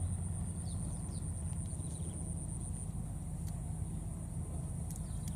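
Outdoor ambience in tall grass: a steady low rumble under a constant high-pitched drone, with a few faint short chirps.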